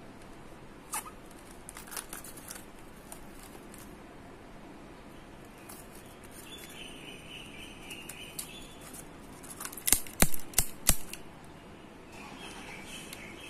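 A shrink-wrapped cardboard box being handled, its plastic film rustling and rubbing, with a quick run of loud sharp clicks a little after the middle. Near the end a utility knife scrapes along the box edge, slitting the shrink wrap.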